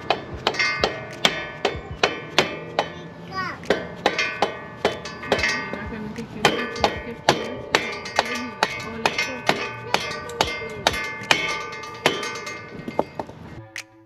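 Background music with a steady beat, cutting off abruptly just before the end.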